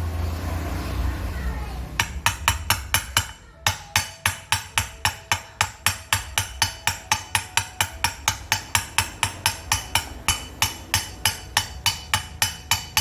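A low rumbling noise for about two seconds, then a hammer striking metal over and over in a steady rhythm of about four blows a second.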